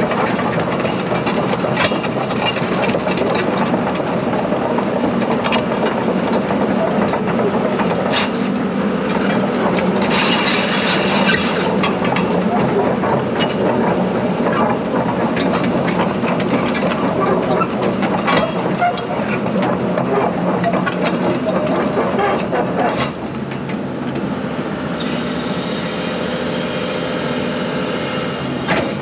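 2004 Daewoo SL225LC-V excavator's mechanical diesel engine running under load while the machine is worked, with a steady clatter of metal clanks and creaks from the moving undercarriage and upper structure. A hiss about ten seconds in, and the noise drops a little in level near the end.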